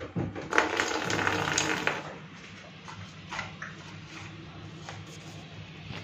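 Hand mixing atta flour in a steel bowl, fingers rustling and scraping the flour against the metal as dough kneading begins, busiest in the first two seconds and then quieter with a few light scrapes. A low steady hum runs underneath.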